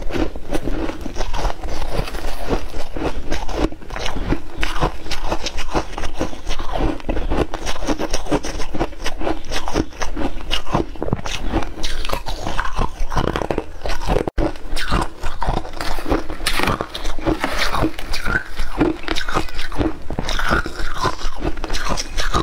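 Shaved ice being chewed close to the microphone: dense, continuous crunching of icy flakes in the mouth, breaking off for an instant about two-thirds of the way through.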